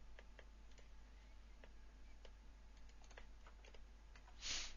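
Faint, irregular clicks of a computer mouse and keyboard during 3D modelling work, with a short hiss near the end.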